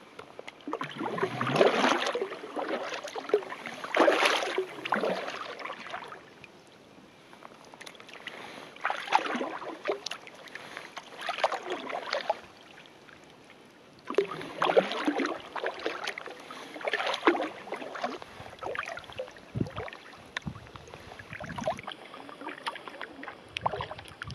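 Kayak paddle strokes dipping and splashing in calm water, a stroke about every two to three seconds, with a couple of short pauses between runs of strokes.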